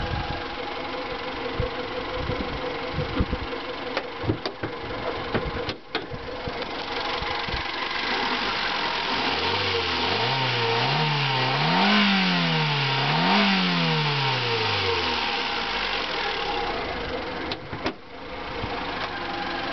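Fiat Grande Punto 1.4 16v four-cylinder petrol engine on its stock exhaust, idling, then revved up twice in quick succession about halfway through before the revs fall back to idle. A few sharp clicks are heard in the first six seconds and again near the end.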